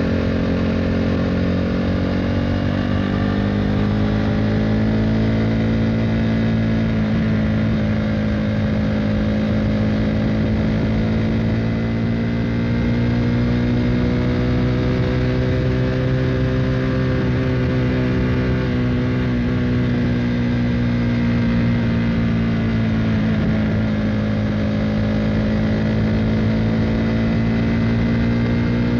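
KTM Duke 390 single-cylinder engine running through an Akrapovic Racing Line exhaust while cruising. Its pitch gently sags and swells several times as the throttle is eased and opened again.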